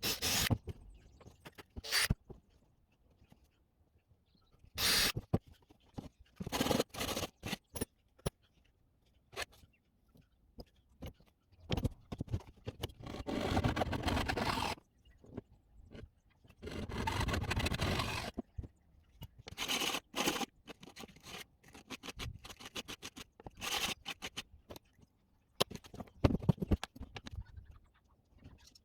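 Scraping and handling noises from a leather strap being worked by hand: scattered short scrapes and knocks, with two longer scrapes of two to three seconds each in the middle.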